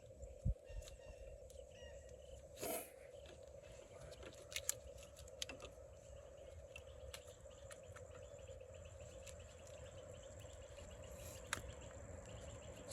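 Faint scattered clicks and knocks of spark plug wire boots being handled and pushed onto the plugs, over a steady low hum.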